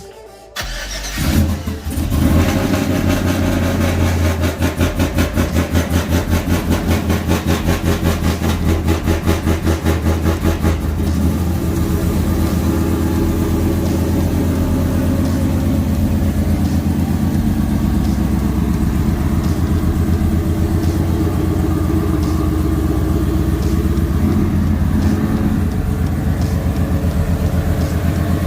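Chevrolet Silverado pickup engine starting about a second in, then running with an even rhythmic pulsing for several seconds before settling into a steady run.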